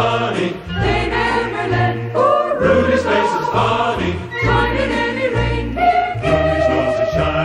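Music: a choir singing over a regular pulsing bass line.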